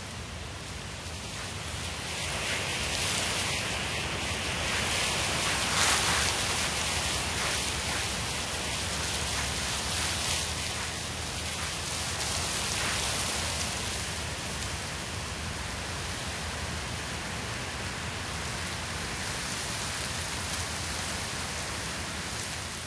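Steady rain falling, a dense even hiss flecked with individual drops, swelling louder about two seconds in.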